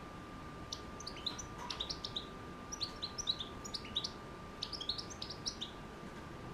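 A six-month-old caged European goldfinch twittering: quick, high chirping notes in three short runs.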